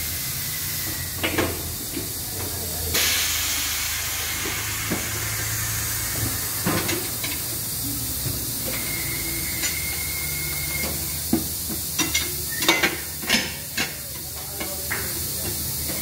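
Tyre-changer workshop: a steady hiss of compressed air, with a stronger burst of air about three seconds in. Near the end comes a quick run of sharp metallic knocks as a wheel is set on the tyre changer's turntable and worked with a lever.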